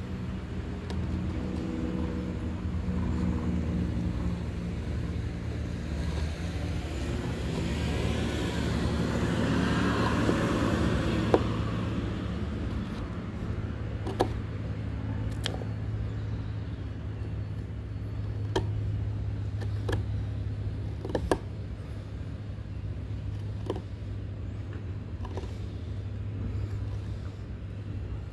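Steady low hum of a running motor vehicle, with a broad swell of another vehicle passing about ten seconds in. Scattered sharp clicks follow, a knife blade carving oak.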